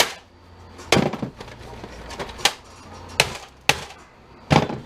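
Sharp clacks and knocks of a plastic inkjet printer's casing and parts being handled and worked with a screwdriver during disassembly, about seven separate hits spread over the few seconds.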